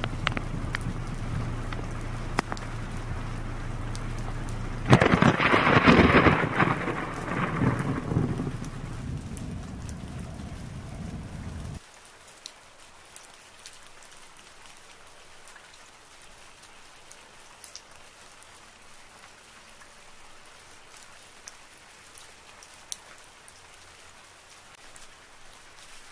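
Heavy rain with a loud thunderclap about five seconds in, rumbling for a few seconds. About twelve seconds in the rain sound cuts off abruptly, leaving only faint scattered ticks.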